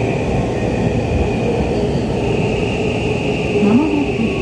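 Seibu 6000 series subway train running through a tunnel, heard inside the car: a steady rolling rumble of wheels on rail, with a steady high whine over it.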